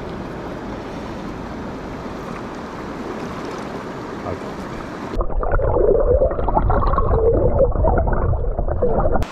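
Steady rush of river water. About five seconds in, it changes abruptly to a louder, duller churning rumble with gurgling.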